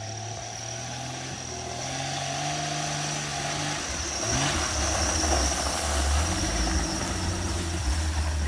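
Jeep Cherokee XJ engine pulling through snow, its pitch rising steadily for about four seconds before falling away, then a low rumble with the hiss of tyres in the snow.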